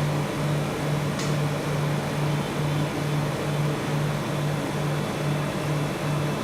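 Steady mechanical hum that pulses on and off about twice a second, with a brief higher scrape or click about a second in.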